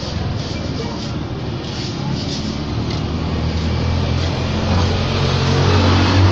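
A motor vehicle engine running steadily, a low hum that grows louder toward the end.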